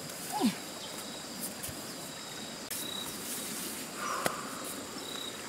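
Insects chirping steadily in the background, with short high chirps repeating every second or two. About half a second in comes a brief falling grunt-like voice, and around four seconds in a single sharp knock.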